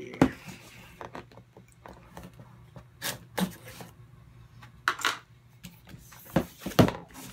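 A cardboard box being handled and opened by hand: scattered taps, knocks and scrapes of cardboard, with a few sharper knocks, the loudest near the end.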